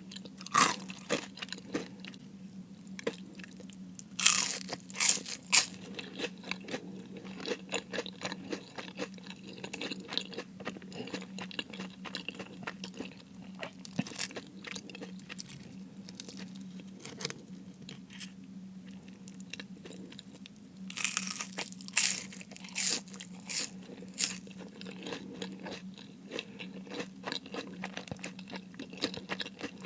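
Close-miked eating of crispy fried food: loud crackling bites into the crunchy coating, in bursts near the start, around four seconds in and past the twenty-second mark, with softer, wetter chewing between them.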